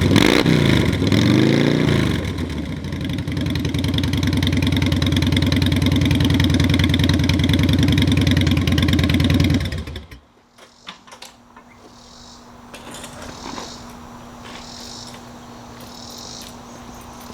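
2008 Harley-Davidson Night Train's Twin Cam V-twin running through newly fitted Vance & Hines Big Shots staggered exhaust: a couple of quick throttle blips at the start, then a steady idle, and the engine is shut off about ten seconds in.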